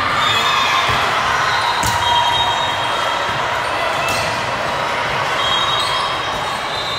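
Volleyball struck during a rally in a large gym, with sharp ball contacts about two seconds and about four seconds in, over a steady background of spectator chatter.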